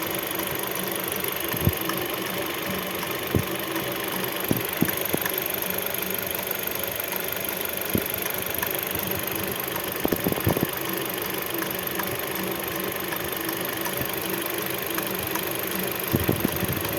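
Hyundai Solaris running steadily, with irregular sharp knocks a second or several apart, some in quick pairs. The knock is the fault being recorded.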